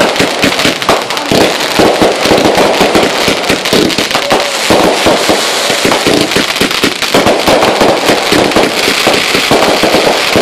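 Fireworks going off close by in a dense, unbroken run of pops and crackles.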